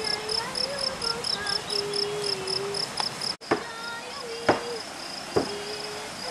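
Insects chirping outdoors: a steady high pulsing, about four pulses a second, that briefly drops out near the middle. Three sharp clicks or snaps fall in the second half, the loudest about four and a half seconds in.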